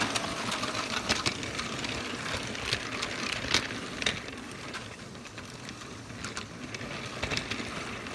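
Battery-powered Lego train running on its track: a steady motor whir with irregular clicks and clatter from the wheels on the plastic rails.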